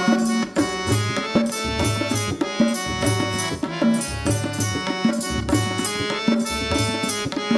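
Instrumental interlude of a Hindustani devotional bhajan: a harmonium plays a melody in held notes over tabla and dholak drumming in a steady rhythm, with no singing.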